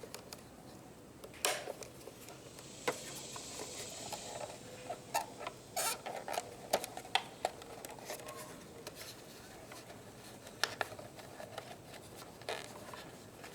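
Scattered small clicks, taps and rubbing from hands handling fuel pump module parts and wiring, with a short stretch of scraping about three seconds in.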